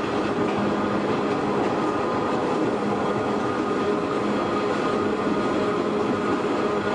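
Shin-Keisei 100-series electric train running steadily, heard from inside the car: an even rumble of the wheels on the rails, with a steady drone from its nose-suspended traction motors and gears.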